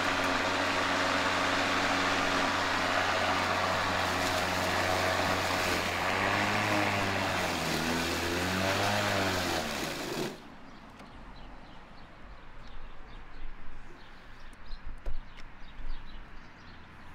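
Ryobi 40-volt brushless cordless push mower running, its pitch dipping and recovering a few times as it cuts grass. About ten seconds in it cuts out abruptly, which the owner takes for the battery dying. Only faint ticks and rustling follow.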